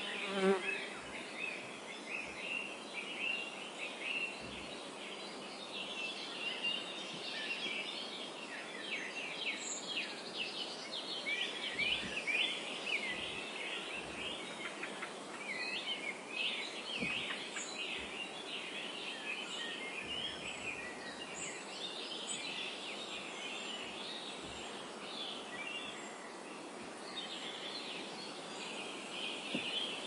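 Meadow ambience: a busy, continuous chorus of high chirps over a steady hiss of wind through the tall grass. A brief, louder buzz comes about half a second in.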